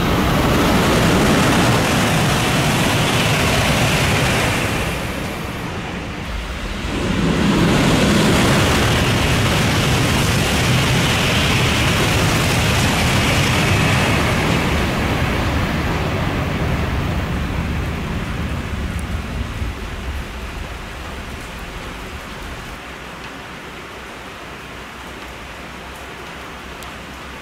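Shinkansen bullet trains passing through a station at high speed in the rain, a rushing noise of wheels and air. A 500 series passes first; after a short lull about six seconds in, an N700 series rushes through, and its noise fades away over the second half, leaving steady rain hiss.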